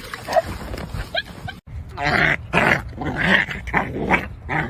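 Dog growling and barking in rough play: a quick run of loud growls and barks starting abruptly about one and a half seconds in.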